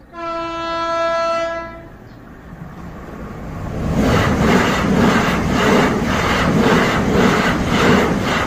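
Passenger train sounds its horn in one steady note for about two seconds, then passes with a rising rumble. From about four seconds in, its wheels click over the rail joints roughly twice a second.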